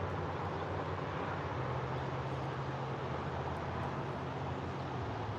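Steady low rumble with a hiss over it: continuous outdoor background noise with no separate events.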